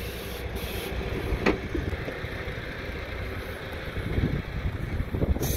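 MAN truck's diesel engine idling steadily, with a single click about a second and a half in and footsteps crunching on gravel near the end.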